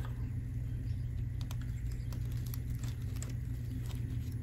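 Light, irregular clicks and ticks of a red folding pocketknife being handled and worked under a thread to cut it, over a steady low hum.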